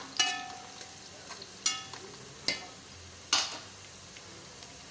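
Bitter gourd pieces frying in ghee in a steel pot with a steady sizzle, while a metal spatula stirring them strikes the pot four times with a ringing clank.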